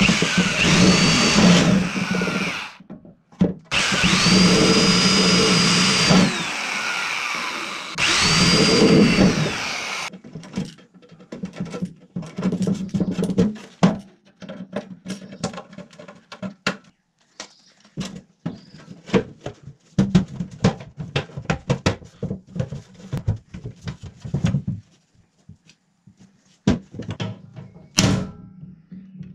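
Handheld electric drill boring through a thin aluminium box wall in three runs. The motor whine rises, holds and falls with each trigger pull. Then come scattered clicks and scrapes of hand tools on the aluminium, and a single sharp snap near the end.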